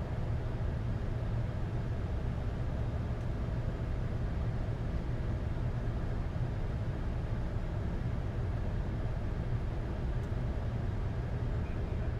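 Steady low rumble of flight-deck background noise in a Boeing 747-8 cockpit, even and unchanging throughout.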